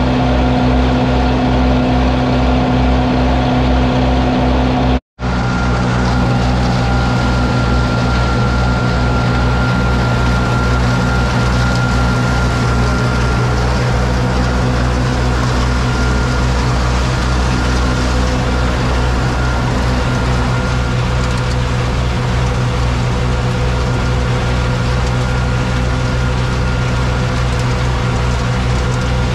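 Farm tractors running steadily under PTO load as a Badger forage box unloads chopped corn silage into a silage blower, with a steady mechanical hum. The sound cuts out for a moment about five seconds in; afterwards a steady high whine rides over the engines.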